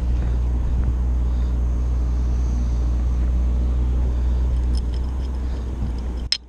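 Steady low rumble with a faint hum. It cuts off suddenly with a click near the end.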